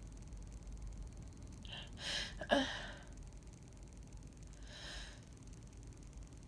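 A woman's breathing as a sneeze builds: quick catching inhales about two seconds in that end in a short, sharp burst, then another breath near five seconds.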